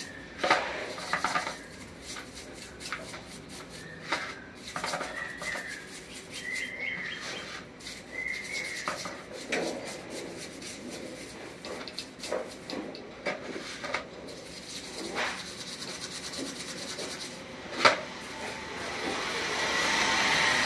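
Small brush scrubbing a petrol-soaked Honda Livo carburetor body in irregular scratchy strokes, with light clicks of metal parts being handled. There is one sharp knock about 18 seconds in.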